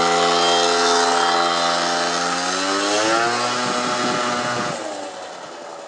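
Peugeot Speedfight 50cc liquid-cooled two-stroke scooter engine running at high revs as the moped rides along the road. Its pitch bends up and then drops about four seconds in, and the sound fades near the end.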